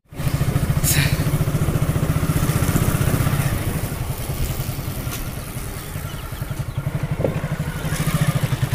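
Motorcycle engine running as the bike is ridden along, easing off through the middle and picking up again near the end.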